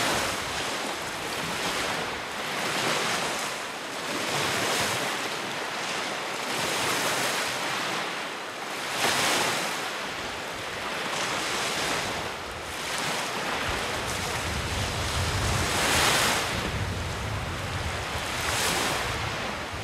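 Waves washing onto a shore, each wash swelling and fading every two to three seconds. A low wind rumble on the microphone joins about two-thirds of the way through.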